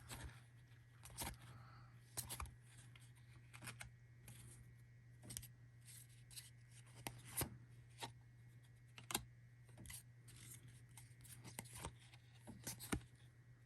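Trading cards being flipped through by hand: faint, irregular clicks and slides of card stock, roughly one a second, over a low steady hum.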